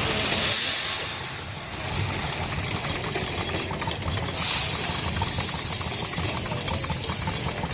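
A 1/3-scale Case hay baler and the engine driving it, running steadily with a low rumble. A loud high hiss comes in briefly at the start and again from about four seconds in.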